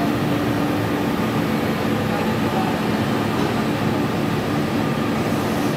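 Steady mechanical hum of a large CNC floor-type horizontal boring mill running, with a constant low drone and no starts or stops.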